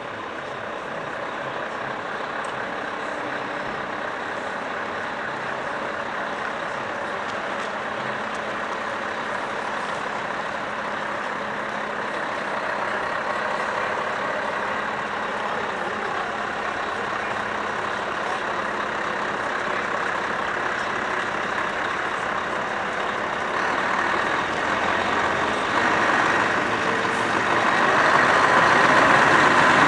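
Scania R620 truck with a V8 diesel engine, carrying a building module, driving slowly with the engine running steadily; it grows louder as the truck approaches and is loudest near the end.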